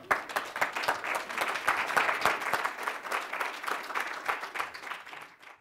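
Audience applauding, starting at once and dying down over the last second before cutting off abruptly.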